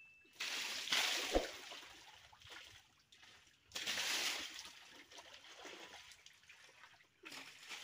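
Bucketfuls of water thrown against a tractor trolley's wheel and side panel: three splashes, each dying away into dripping and trickling.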